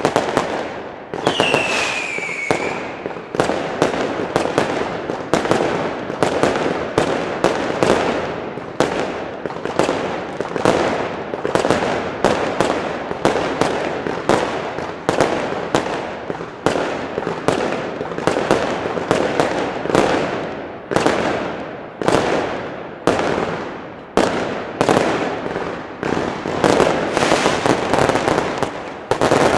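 Consumer firework battery cakes firing a continuous barrage: a dense, rapid run of bangs from launched shots and bursting shells, with a falling whistle about a second in.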